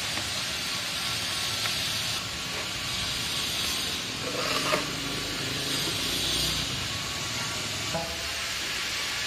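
Steady broad hiss of background noise, with a few faint brief tones around the middle, cutting off suddenly near the end.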